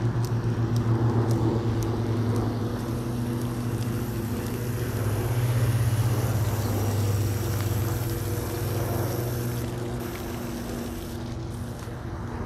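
A motor vehicle's engine running with a steady low hum, the noise swelling to its loudest around the middle and easing off toward the end, like a vehicle passing.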